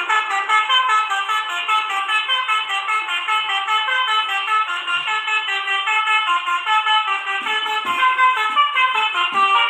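Telolet Basuri multi-tone horn playing a quick, stepping melody, several notes sounding together, starting abruptly.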